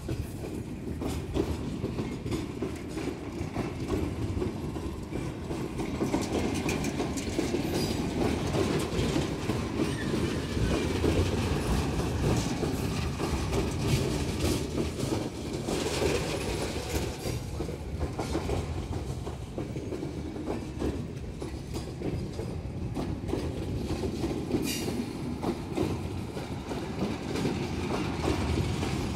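Loaded freight wagons rolling past, their wheels clicking steadily over the rail joints with a dense low rumble and an occasional brief high squeal.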